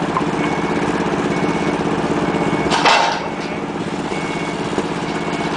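A wheel loader's diesel engine running steadily while its backup alarm gives short high beeps, a little under one a second. About three seconds in there is a sudden loud rushing noise, lasting under half a second.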